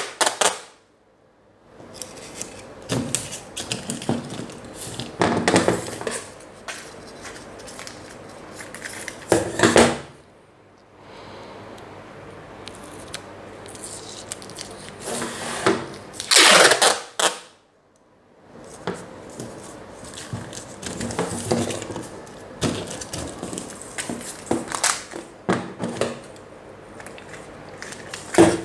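Brown packing tape pulled off the roll a few times, each pull loud and brief, and pressed onto a sheet of aluminium foil, with foil crinkling and handling noise in between.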